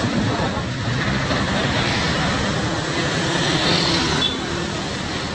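Slow heavy traffic with a steady engine rumble from big diesel trucks carrying heavy equipment, mixed with motor scooters passing.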